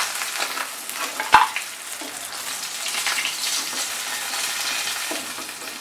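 Hot mustard oil sizzling around pieces of fried rohu fish head as a wooden spatula lifts them from the kadai. One sharp knock comes about a second and a half in, with a few lighter taps.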